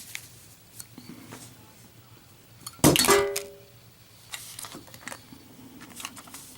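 A lit Zippo lighter is dropped and hits a hard surface once, about three seconds in, with a sharp metallic clatter and a brief ringing that dies away. Small clicks of handling come before and after. The flame stays lit through the fall.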